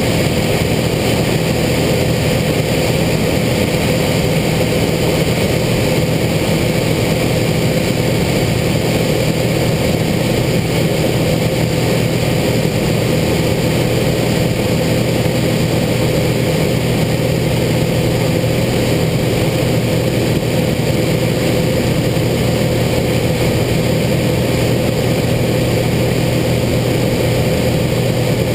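Single-engine light aircraft's piston engine and propeller running at a steady drone, heard from inside the cockpit. The pitch and loudness hold constant.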